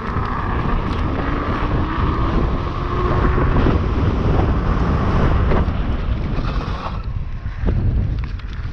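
Wind buffeting the microphone while riding a fast electric bike, a steady heavy rumble. Over roughly the first half a faint high steady tone sounds above it, with a fainter slowly rising tone beneath.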